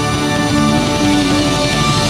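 Live rock band of keyboards, electric guitar, bass and drums playing loudly, holding sustained chords.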